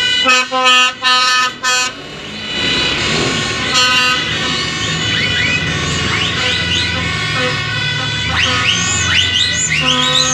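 City bus air horns sounding about five short blasts in quick succession. Then a bus engine rumbles as it drives slowly past, with repeated short rising whistles over it.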